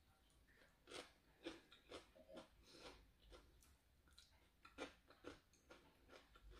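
Faint chewing and mouth sounds of a person eating, a run of soft, irregular clicks and smacks.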